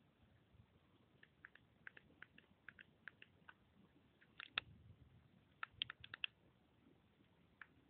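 Near silence broken by faint, sharp clicks of a JioPhone's keypad buttons being pressed: scattered single clicks, a pair a little after the middle, then a quick run of about five.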